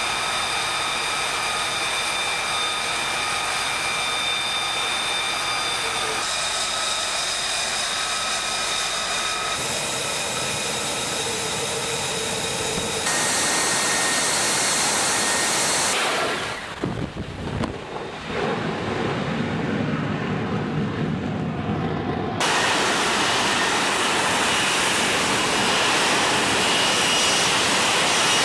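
F-35B Lightning II jet engine running on a ship's flight deck. It is a steady jet roar with high, steady turbine whine tones through the first part, and the sound changes abruptly several times, with a short dip about two thirds of the way through. For the last few seconds it is the louder roar of the jet hovering for a vertical landing.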